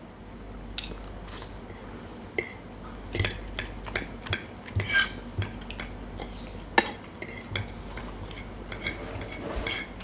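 Metal spoon and fork clinking against a ceramic plate as food is cut and scooped: scattered light clinks, busiest in the middle, with one sharp clink at about seven seconds the loudest.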